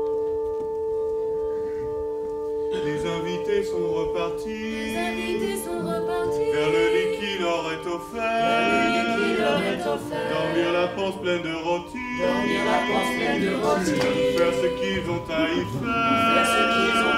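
Stage music: a chord of sustained notes, joined about three seconds in by several voices singing together, the held notes fading out about halfway through while the singing goes on.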